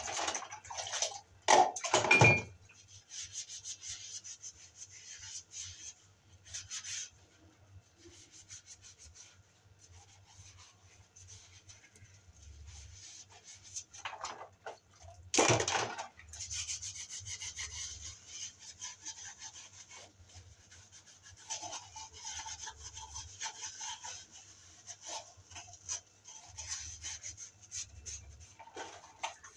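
Dishes and utensils being scrubbed by hand with a soapy sponge: steady rubbing and scraping, with loud clatters of items knocking together about two seconds in and again about halfway through.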